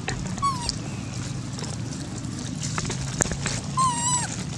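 Young long-tailed macaque giving two short, high-pitched coo calls about three seconds apart, each with a slight wavering pitch.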